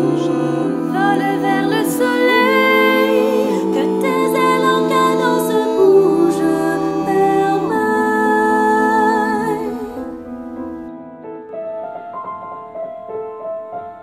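A small group of voices singing a song in harmony with piano accompaniment. About ten seconds in the singing stops and the upright piano carries on alone, more quietly.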